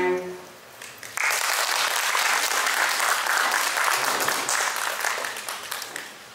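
The final held chord of two cellos dies away in the first moments, then an audience applauds, starting about a second in and thinning slightly near the end.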